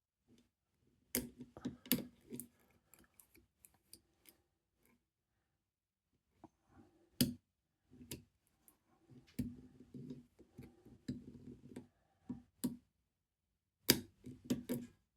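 Metal pick wire and tensioner working inside a lever safe lock: scattered sharp clicks and light scraping as the levers are probed and lifted, with a quiet stretch in the middle.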